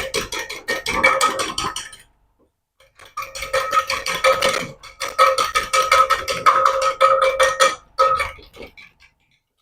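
Egg and milk being beaten in a bowl: a utensil clicks rapidly against the bowl, which rings with each stroke. It comes in bursts with short pauses, the longest about two seconds in.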